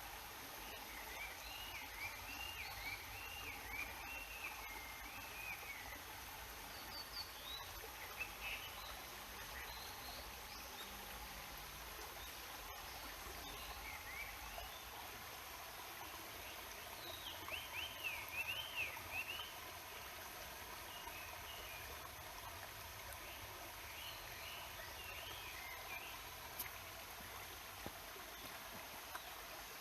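River water rushing and babbling steadily, with a small songbird singing short warbling phrases several times over it, loudest a little past the middle.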